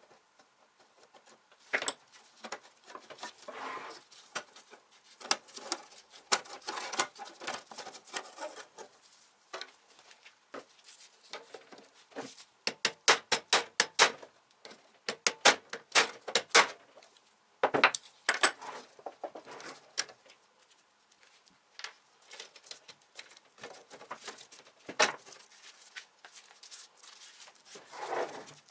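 Metal clinks, taps and rattles from the sheet-metal box of an electric grill and its heating element being handled, with a dense run of quick clicks in the middle.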